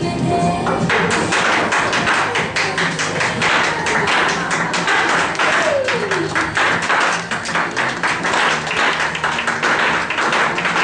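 A crowd of guests clapping, many hands at once and irregular, starting about a second in, with music continuing underneath.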